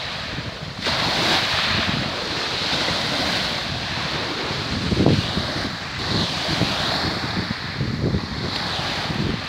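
Choppy sea water washing and lapping near the shore, with wind rushing and buffeting the microphone in irregular gusts.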